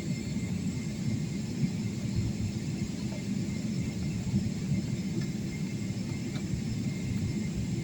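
Steady low rumble of cabin noise inside a Boeing 777-300ER airliner, with a faint steady high whine above it.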